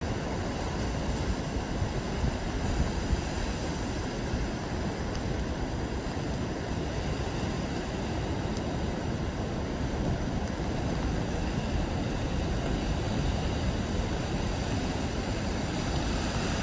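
Stormy surf breaking steadily on a sandy beach and rocks, a continuous rush of waves with wind rumbling on the microphone.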